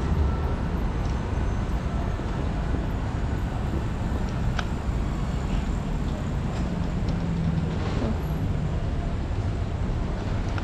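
City street traffic noise: a steady low rumble of cars, with a faint engine hum a little past the middle.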